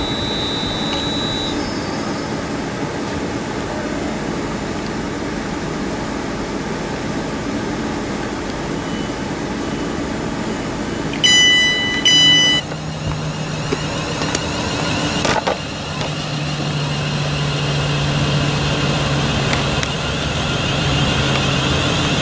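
A London Midland Class 350 electric multiple unit standing at the platform with its on-board equipment humming steadily. About eleven seconds in, two loud electronic beeps sound, the train's door-closing warning. After that a steady low hum and a higher wavering whine come in.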